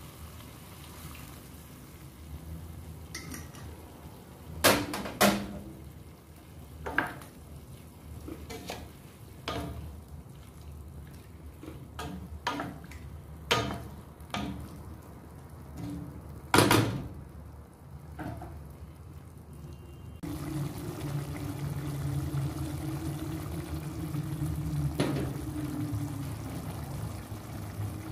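Oyster sauce and water poured into a stainless steel pot of chicken and peppers, which is stirred with a wooden spatula: scattered sharp knocks and clatters against the pot, the loudest a few seconds in and again past the middle. About two-thirds of the way through, a steady low hum sets in.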